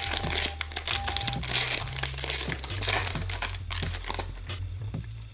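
Foil hockey card pack wrapper crinkling and cards being handled: a dense run of small crackles that thins out near the end.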